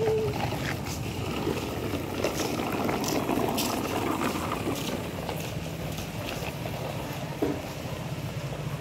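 A small toy Rath Yatra chariot being dragged on a string along a paved street, its wheels rolling with a steady rough rumble. Scattered light clicks, and a brief knock a little after seven seconds in.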